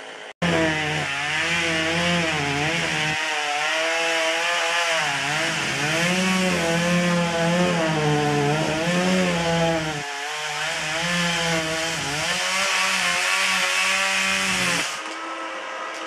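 Two-stroke chainsaw running at full throttle as it cuts through the base of a standing tree trunk. Its engine note wavers up and down as the chain works in the cut, and the saw drops back about a second before the end.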